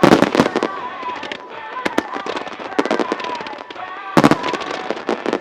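Fireworks starmine barrage: shells bursting sharply in quick clusters, loudest at the very start and again a little past four seconds, with scattered crackling between them, over music played with the show.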